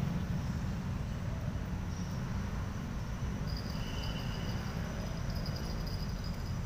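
Steady low rumble of traffic on the flyover overhead. From about halfway through, insects chirp thinly and high.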